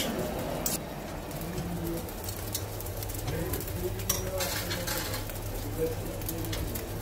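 Grill-kitchen background: a steady low hum with murmuring voices and a few sharp clinks of metal skewers being handled on the charcoal grill.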